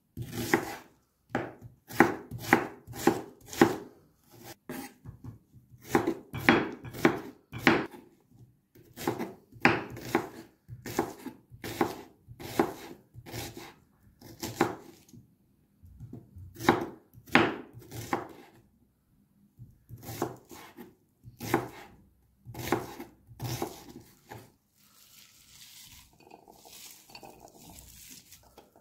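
Kitchen knife slicing onions on a wooden cutting board: sharp knocks of the blade hitting the board in short runs of several strokes with pauses between. Near the end the chopping stops and softer rustling follows as the sliced onion is moved into a bowl.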